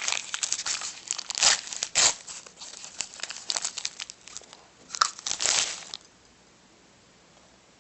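Plastic popsicle wrapper crinkling and tearing as it is opened, in irregular bursts that are loudest about a second and a half in, at two seconds and again around five seconds, then stop about six seconds in.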